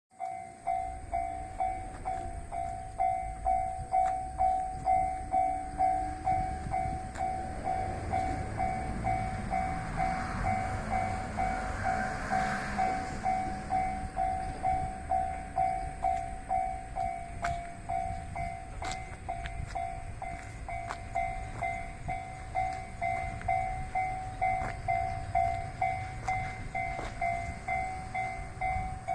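Japanese level-crossing alarm ringing steadily, just under two strikes a second, as a diesel train passes through the crossing. The train's rumble swells to its loudest a little before halfway, followed by a few sharp clicks of wheels over rail joints.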